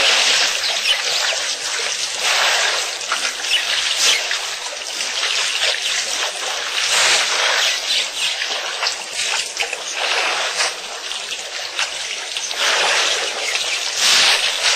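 Elephants drinking: water splashing and dribbling as it is squirted from their trunks into their mouths, coming in irregular surges every few seconds.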